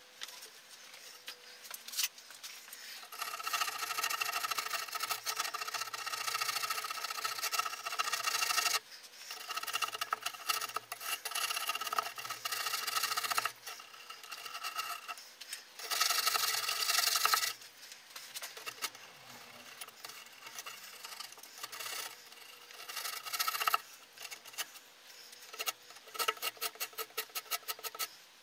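Hand tool scraping and rasping soft kiln insulation board, in long scraping passes broken by pauses, then a run of quick short strokes near the end.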